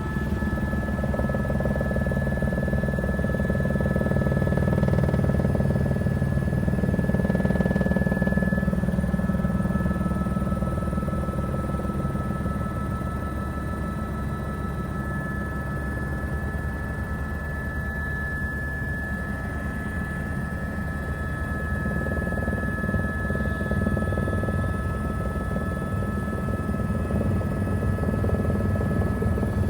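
Helicopter in flight heard from inside the cabin: a steady low drone from the rotor and engine, with a constant high-pitched whine over it.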